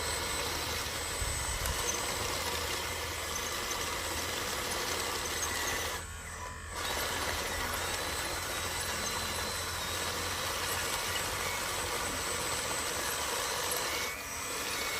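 Radio-controlled model construction trucks running: a steady mechanical hum and whir. It drops out briefly about six seconds in and again near the end.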